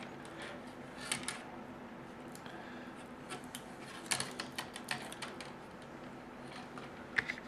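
Scattered light clicks and scrapes of hand work on a plastic laptop screen bezel as old glue is picked and scraped off, over a steady low hum.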